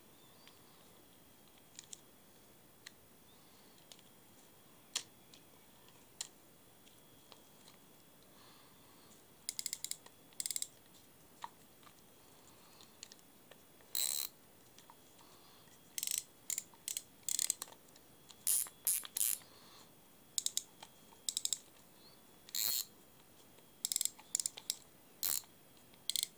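Okuma Undertaker UR50 rear-drag fixed-spool reel being worked by hand, its mechanism clicking. A few faint ticks come first; from about ten seconds in there are many loud, sharp clicks and short rapid clicking runs.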